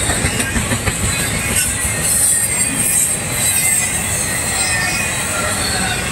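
Double-stack intermodal container train rolling past: a steady rumble of steel wheels on the rails, with a few clacks in the first second and a high wheel squeal around the middle.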